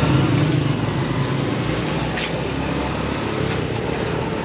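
Busy market-street noise: a steady low hum of motorcycle engines running close by, over a general bustle of traffic and people.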